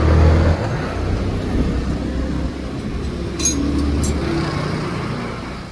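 Kawasaki Barako II motorcycle engine running with a steady low rumble that eases off toward the end. Two light metallic clinks come about three and a half and four seconds in.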